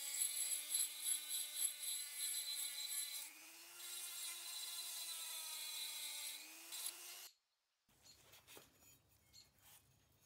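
Rotary tool with a sanding drum whining as it grinds the edge of a metal coin-bank casting. The grinding eases about three seconds in while the motor pitch rises slightly, and the tool cuts off suddenly about seven seconds in, followed by faint handling clicks.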